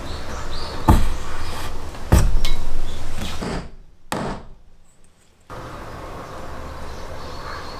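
Steel linear bushing being knocked and pressed into a hole in a hardwood block: two sharp knocks about a second apart, then a lighter tap, followed by a low steady room hum.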